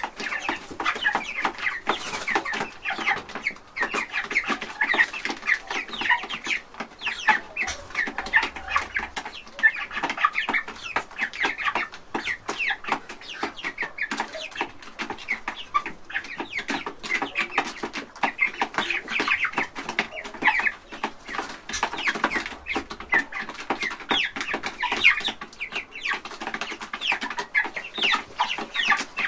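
A flock of young chickens calling constantly, many short calls overlapping one another with no pause.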